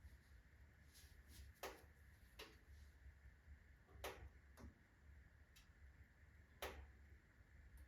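Birch-log fire in a fireplace, burning down slowly, with sparse sharp crackles: about six separate pops at irregular intervals.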